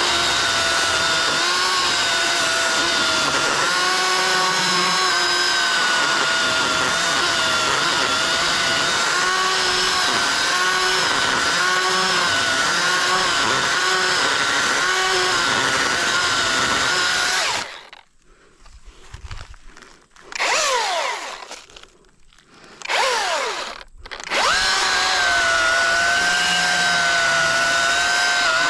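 Youxian battery chainsaw cutting the face notch in a large tree, its electric motor running with a steady whine. About seventeen seconds in it stops, gives two short bursts whose pitch falls as the motor spins down after each, then runs steadily again.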